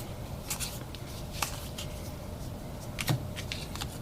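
Trading cards being handled and slid one off another as a pack is sorted through, giving a few light clicks and rustles at uneven moments, the sharpest about three seconds in.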